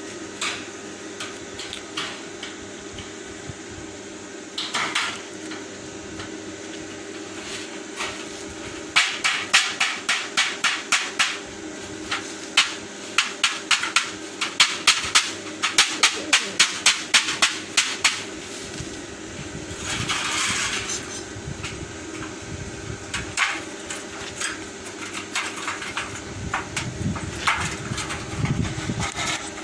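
Hammering: scattered knocks, then a fast run of sharp blows at about three a second for roughly nine seconds in the middle, over a steady hum.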